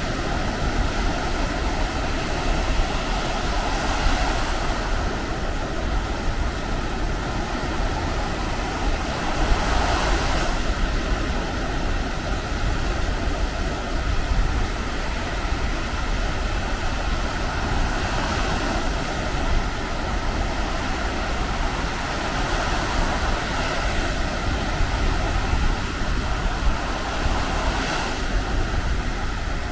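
Baltic Sea surf washing onto a sandy beach, a wave breaking and swelling louder every several seconds, with wind rumbling on the microphone.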